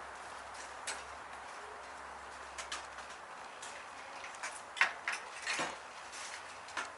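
Quiet background ambience: a steady hiss with a few short, scattered clicks or taps, the loudest two about five seconds in.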